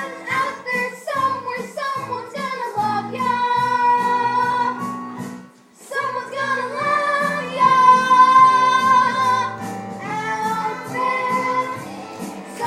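A musical-theatre ensemble singing with instrumental accompaniment, holding long wavering notes. The music breaks off briefly about five and a half seconds in, then resumes.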